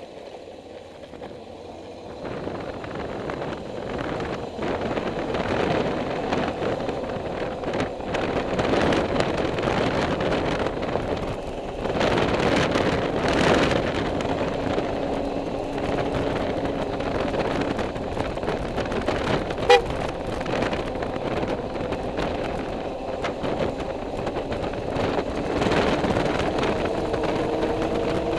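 Vehicle engine running on the move, with wind and road noise. A short horn toot sounds about two-thirds of the way through, and the engine pitch rises near the end as it accelerates.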